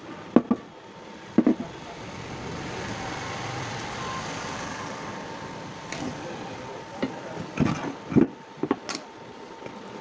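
Bristle brush scrubbing dust and rust off a ceiling fan motor's metal end cover, a steady scratchy hiss, broken by several sharp knocks as the cover is turned over and handled on the wooden table, most of them in the second half.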